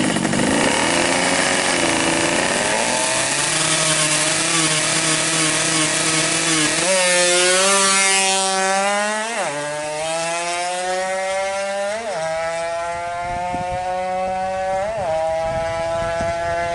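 Yamaha F1ZR 110cc two-stroke engine, fitted with a big 34 mm carburettor, revving at the start line and then accelerating hard through the gears. Its pitch climbs and drops sharply at each of three upshifts, fading as the bike pulls away.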